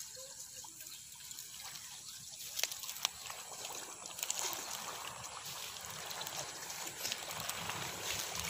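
Water trickling and splashing off a wet cast net as it is pulled up and shaken out in the river, with a few sharp ticks, growing louder about halfway through.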